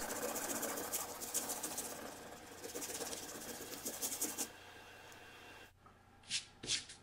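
A pencil eraser rubbing quickly back and forth on drawing paper, erasing pencil lines, fading out a little past the middle. After a short pause, a few quick swishes of a hand sweeping across the paper near the end, brushing off eraser dust.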